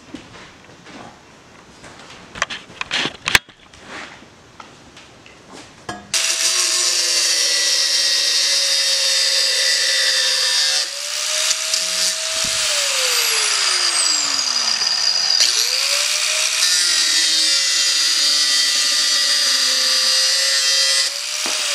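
A few seconds of light handling clicks, then an electric power tool starts and runs loudly for about fifteen seconds with a high hiss; its motor pitch sags twice and recovers, as if loaded and eased off, before it stops near the end.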